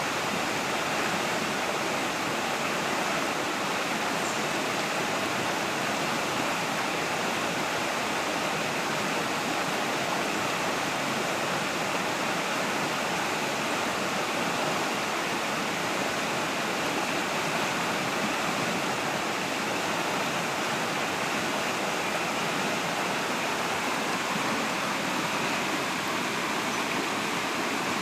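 Waterfall and stream water rushing, a steady, even noise without breaks.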